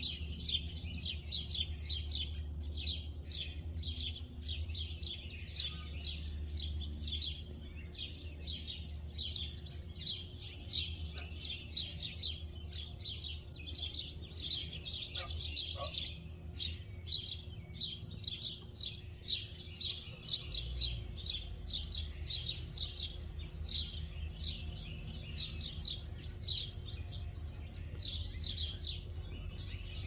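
Fledgling American robin begging for food: short high chirps repeated about two to three times a second, over a low steady rumble.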